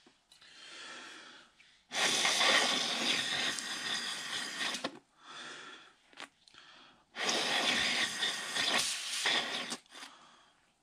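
Dust being blown out of a hole drilled in asphalt through a tube, in two long hissing blows of about three seconds each, clearing the hole before resin anchors are set. Fainter scratching of a small wire brush in the hole comes between the blows.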